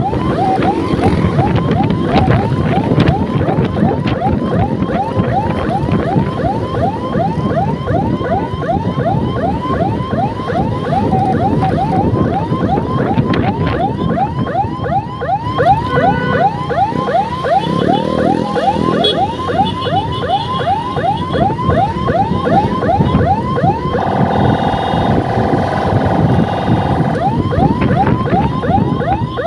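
Electronic siren in a fast yelp, about four to five sweeps a second, over scooter engine and wind noise. For about three seconds near the end it switches to a steady buzzing horn tone, then the yelp resumes.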